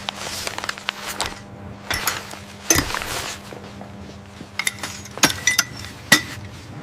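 Irregular sharp clicks and knocks, about a dozen, over a soft rustling and a faint steady hum.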